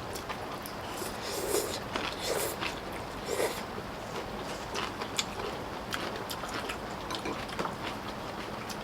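People eating spicy pollack stew: short slurps and chewing with scattered light clicks of spoons, over a steady hiss of rain.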